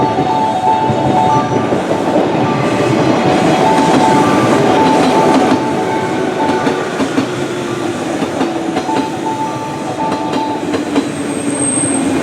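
Electric train running alongside the platform, wheels clattering over the rail joints, with a brief high squeal near the end.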